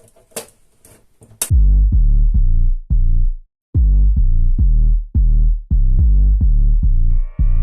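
Electronic background music: a few quick clicks, then a heavy bass-drum beat about twice a second. A rising synth line comes in near the end.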